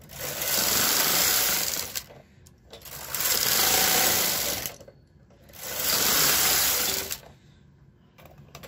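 Brother knitting machine carriage, coupled with the ribber carriage, pushed by hand across the needle bed: three passes of about two seconds each with short pauses between, each pass knitting one row.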